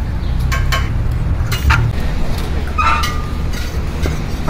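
A steel plate scraping and knocking against a large aluminium biryani pot as rice is scooped out: several sharp clinks, one with a brief metallic ring about three seconds in, over a steady low rumble.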